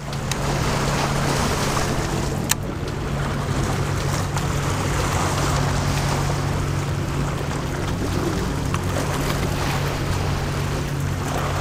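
Small lake waves washing against shoreline rocks, with wind on the microphone and a steady low hum underneath. One sharp click about two and a half seconds in.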